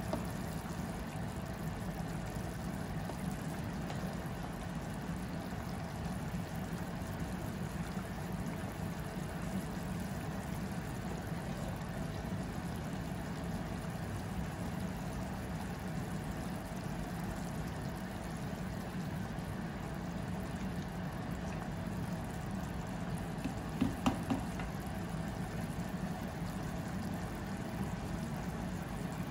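Pot of mung bean and jackfruit soup boiling on the stove: a steady bubbling with a low rumble under it, and a few quick clicks near the end.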